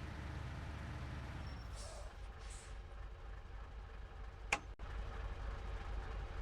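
Water tanker truck engine running while driving, a steady low rumble that eases off about two seconds in. A single sharp click comes about four and a half seconds in, and the engine rumble picks up again after it.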